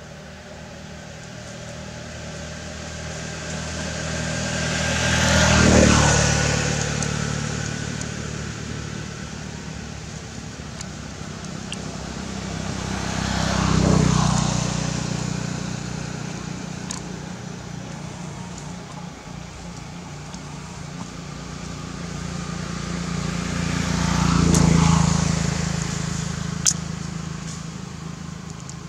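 Three motor vehicles passing by one after another, each engine sound swelling to a peak and fading away over several seconds. A single sharp click near the end.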